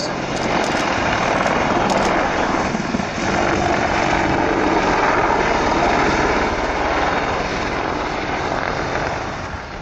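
AgustaWestland Apache AH1 attack helicopter flying low and close, its rotors and Rolls-Royce Turbomeca RTM322 turboshaft engines making a loud, steady roar. The sound eases slightly near the end.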